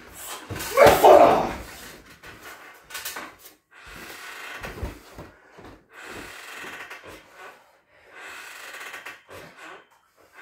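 A loud shout from a Muay Thai fighter as he strikes a 60 kg heavy bag about a second in. It is followed by his heavy breathing, breath after breath, as he recovers.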